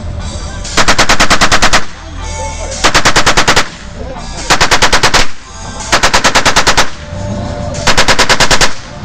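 Tripod-mounted WWII German-style machine gun firing five short bursts of rapid shots, each about a second long with a pause of about a second between them.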